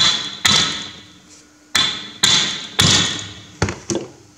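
About seven sharp metallic knocks, unevenly spaced, each with a short ringing decay, from the steel rear-axle assembly being struck while a tight leather oil seal is worked down over the axle shaft.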